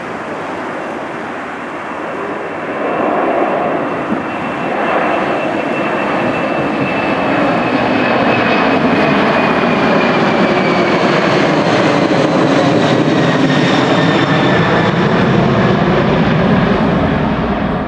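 Boeing 747-400's four jet engines at takeoff thrust as it climbs out overhead: a loud rushing noise that builds over the first few seconds, with a high whine that slowly falls in pitch.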